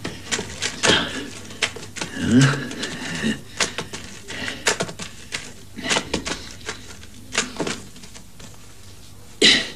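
Bundles of banknotes being handled and slapped down on a concrete floor: a quick, irregular run of paper rustles and soft slaps, with a louder sharp slap near the end.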